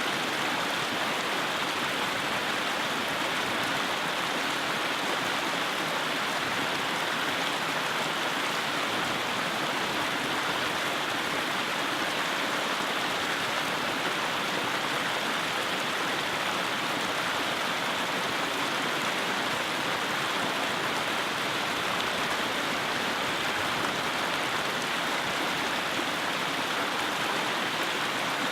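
Mountain creek rushing over and between rocks: a steady, even rush of water.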